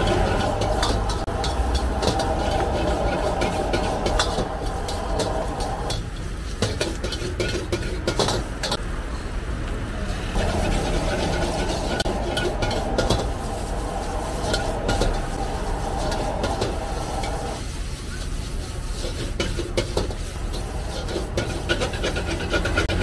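Metal ladle scraping and clanking against a steel wok as vegetables are tossed and stir-fried, with sizzling, over the low rumble of a gas wok burner running at high flame. A steady whine sits under it and drops out twice.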